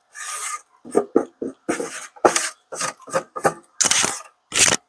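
An irregular run of about a dozen short knocks and rattles from a plastic food dehydrator and its trays being handled.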